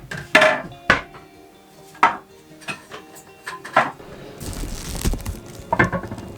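Dishes and utensils being handled: a series of sharp clinks and knocks, some ringing briefly, with a rustling rush of noise about two thirds of the way through.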